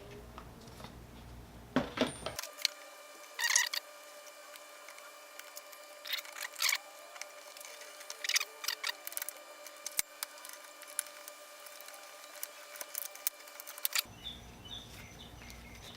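Oil filter cutter being turned around the steel can of a spin-on oil filter: irregular metal clicks and short scrapes as the blade bites into the can.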